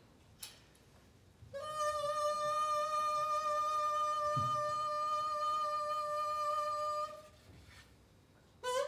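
One long held musical note, steady in pitch and rich in overtones, lasting about five seconds, then a short note near the end.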